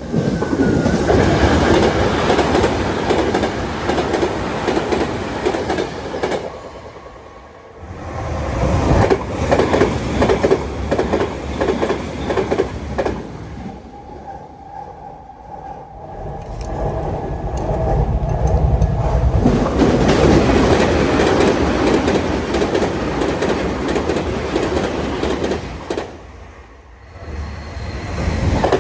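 Tokyu Meguro Line electric trains passing a level crossing at high speed one after another, each a loud rush of wheels on rail. Rhythmic clatter of the wheels over rail joints is heard in the middle pass, with short lulls between trains.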